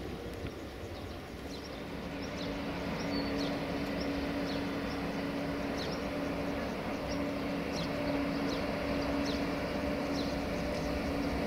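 Locomotive running, a steady engine hum that grows gradually louder as it draws near. Birds chirp throughout.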